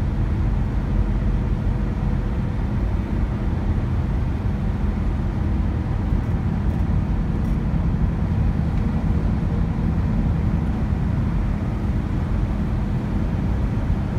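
Steady low road and engine rumble heard inside the cabin of a vehicle travelling at highway speed.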